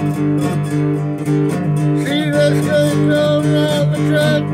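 Acoustic guitar strummed in a steady rhythm. About halfway through, a harmonica on a neck rack comes in over the chords with held notes that waver and bend.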